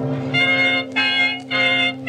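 Organ music: a held low note under chords played in short strokes, about two a second, starting about a third of a second in.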